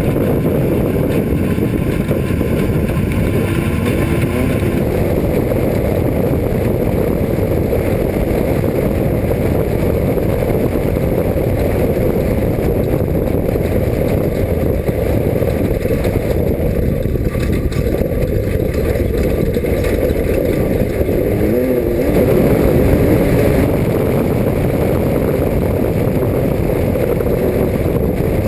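Off-road race car driving at speed: a steady, loud engine rumble mixed with the noise of the vehicle running over rough ground, growing slightly louder about two-thirds of the way in.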